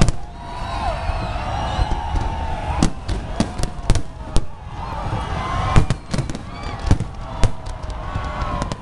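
Aerial fireworks display: a rapid run of sharp bangs from bursting shells, thickest from a few seconds in, over a continuous crackle, with the voices of the watching crowd.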